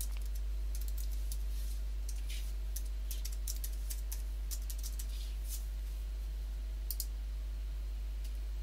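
Typing on a computer keyboard: a quick run of keystrokes for about five seconds as numbers are entered, then a sharper click about seven seconds in, all over a steady low hum.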